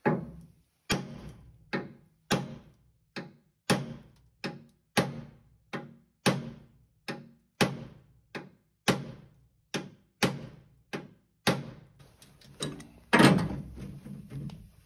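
Claw hammer beating a bent, rusted sheet-metal bus step back into shape: about twenty sharp metal blows at a steady pace of roughly one and a half a second, each with a short ring, the loudest blow coming near the end.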